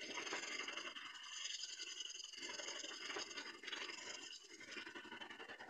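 Wet scrubbing of a rusty handsaw blade with a soapy cloth in a steel basin of detergent foam, scouring off the rust: a continuous scratchy rubbing that rises and falls with the strokes.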